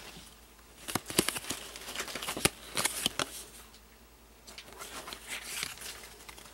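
Trading cards being handled and laid down, with a string of sharp taps and clicks in the first half and softer rustling near the end.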